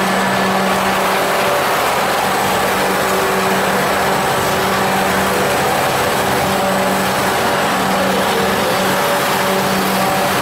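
Caramel popcorn production machinery running: a steady machine hum over an even rushing noise, with no change in level.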